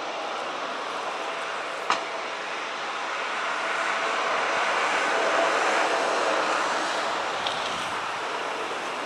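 Jet engines of a Boeing 737 airliner on landing approach: a steady rushing noise that grows louder to a peak around five to six seconds in, then eases a little as the aircraft nears touchdown. A sharp click about two seconds in.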